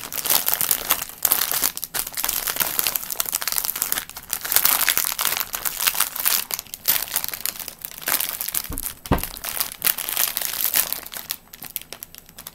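Plastic packaging crinkling and rustling as it is handled, dense and continuous, with a couple of soft thumps about nine seconds in, dying down near the end.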